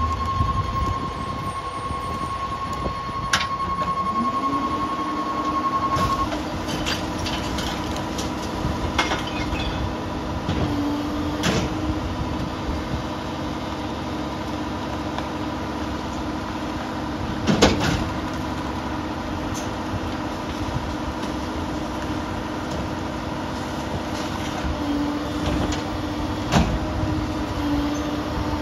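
Rear-loader garbage truck's diesel engine running, rising in pitch about four seconds in and holding there as it drives the hydraulics of the New Way Viper body's cart tipper and packer. A steady high warning tone sounds for the first six seconds, and several sharp bangs come from carts being tipped and recyclables dropping into the hopper, the loudest a little past halfway.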